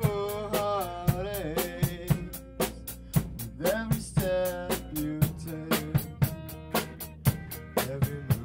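A rock band playing live: a drum kit keeps a steady hi-hat pulse of about four strokes a second with kick and snare, under electric guitar and bass guitar. A young man sings two phrases, the first at the start and the second about four seconds in.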